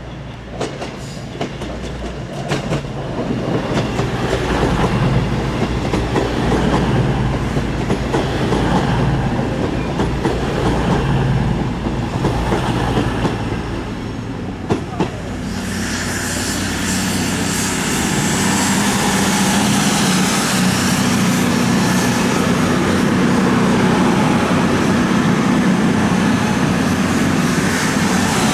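A train running on rails: a low rumble with sharp clicks in the first few seconds. About halfway through, the sound turns brighter, with a steady hum and a hiss.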